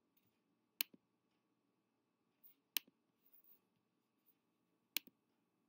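Computer mouse clicks: three sharp clicks about two seconds apart, each followed closely by a softer release click.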